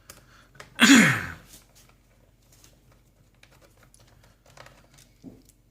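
Faint scattered clicks and ticks of a magnetic screwdriver turning a small screw out of a laptop's plastic bottom case. About a second in comes one brief, loud rushing sound with a falling tone, the loudest thing here.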